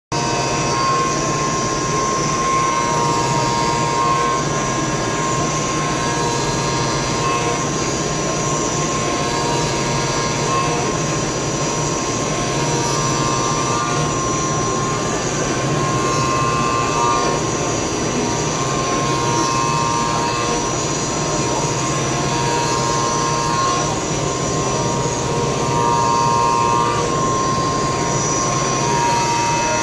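EMAR ECNC8040CM BT30 CNC machining centre running, its spindle turning and the cutter milling a metal block: a loud, steady machining whine. A higher tone comes and goes every second or two as the cutter works along its passes.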